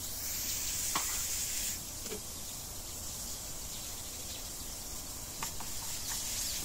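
Diced carrots sizzling in olive oil in a frying pan: a steady high hiss, louder for the first couple of seconds, with a few faint ticks.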